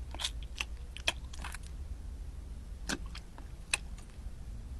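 French bulldog chewing food held in its paws: irregular wet clicks and smacks of its mouth over a low steady hum.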